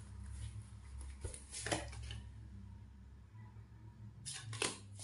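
Oracle cards handled in the hand, card stock slid and flicked against itself: a brief rustle about one and a half seconds in and two more near the end, over a low steady hum.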